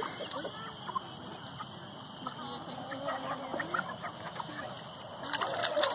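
Flock of chickens clucking, with many short scattered calls. A burst of scratchy noise comes in near the end.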